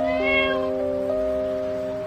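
Background music of soft sustained notes, with one short, high, meow-like cry about a quarter of a second in.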